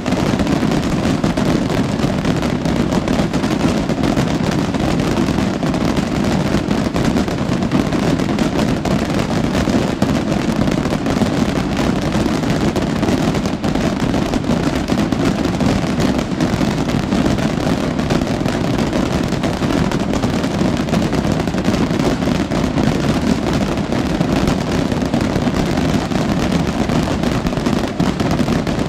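Massed festival rockets and firecrackers going off in an unbroken barrage, the bangs so close together that they merge into a steady crackling roar.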